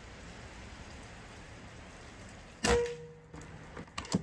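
A single shot from a Seneca Eagle Claw lever-action PCP air rifle: a sharp crack about two and a half seconds in with a brief ring after it, followed by a few quick clicks near the end.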